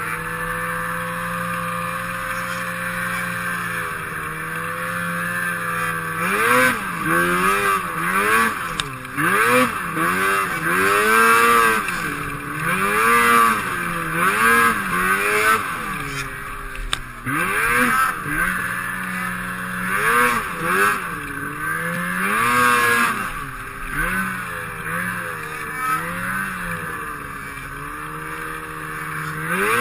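Snowmobile engine running at speed, steady at first. From several seconds in, its pitch swings up and down about once a second as the sled is throttled on and off through snow drifts.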